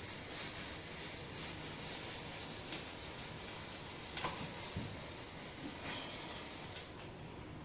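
Faint steady hiss with a few soft ticks.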